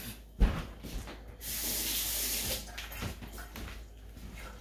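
A single sharp knock, then a steady hiss lasting about a second.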